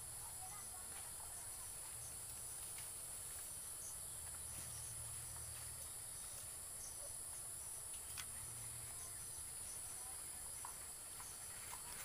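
Faint, steady high-pitched insect drone, with a few faint clicks.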